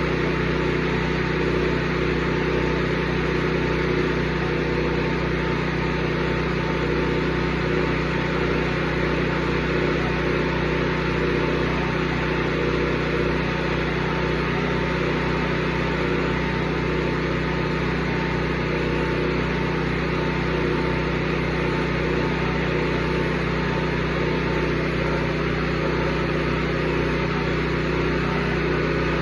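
Porter-Cable 24-gallon air compressor running steadily.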